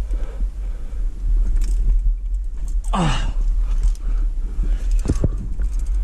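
Sounds of a lead climb picked up by a head-mounted camera: a steady low rumble on the microphone, with scattered knocks of hands and gear against the rock, several close together near the end. About three seconds in, a short loud sound glides down in pitch.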